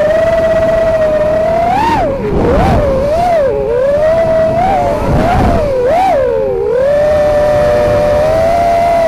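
FPV racing quadcopter's Dragonfly Hurricane 2207 KV2500 brushless motors and three-blade props whining in flight. The whine holds steady, then rises and falls in pitch several times in quick swings as the throttle changes during turns, with rushes of wind noise, before settling steady again near the end.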